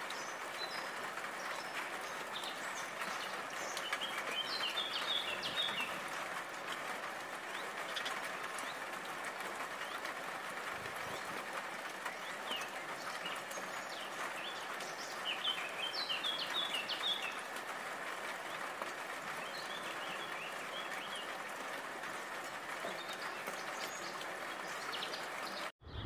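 House sparrow chirping in three short runs of quick chirps over a steady background hiss.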